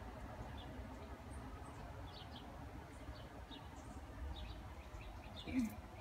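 Outdoor ambience: small birds chirping faintly and on and off over a low, steady rumble, with one brief louder sound near the end.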